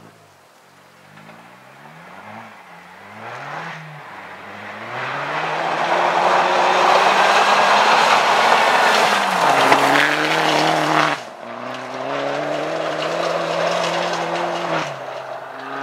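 Opel Corsa OPC rally car's engine at full throttle on a gravel stage, climbing in pitch and dropping back with each gear change as it approaches. It passes close at its loudest amid a noisy rush of tyres on gravel, then pulls away with a steady, high engine note.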